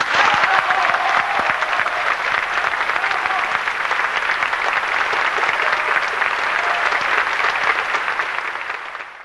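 Large audience applauding steadily right after the final orchestral chord of the aria, with a few voices calling out over the clapping, fading out at the very end.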